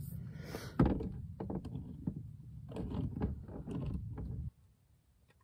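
Hand-crank can opener cutting around the lid of a metal can: a sharp click about a second in, then a run of crunching clicks as it is turned, over a low rumble. Everything stops suddenly after about four and a half seconds.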